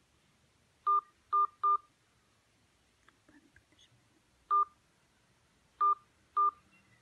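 Smartphone dial-pad touch-tones: six short beeps as digits are keyed in during a call to an automated top-up line, three in quick succession about a second in, one a few seconds later and two more near the end.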